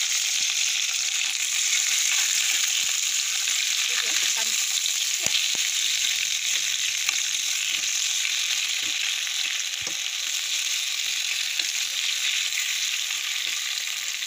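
Bok choy sizzling steadily in a hot nonstick pan, with scattered light clicks from metal tongs turning the leaves.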